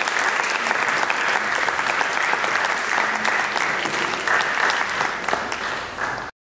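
Audience applauding, a dense steady clatter of many hands clapping, which cuts off suddenly near the end.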